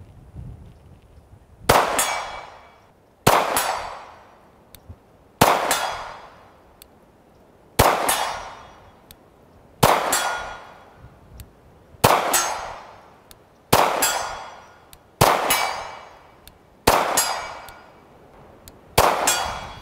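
A 9mm pistol fired ten times, slow and deliberate, about one shot every two seconds; each shot is a sharp crack followed by a long fading echo.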